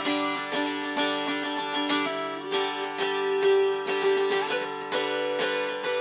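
Handmade mountain dulcimer being strummed in a steady rhythm, a fretted melody ringing over a steady drone.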